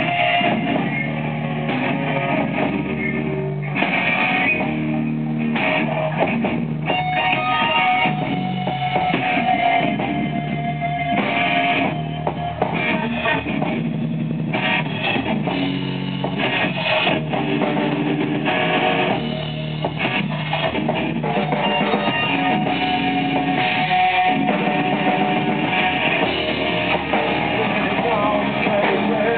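A heavy rock band playing live: electric guitars and a drum kit, loud and continuous.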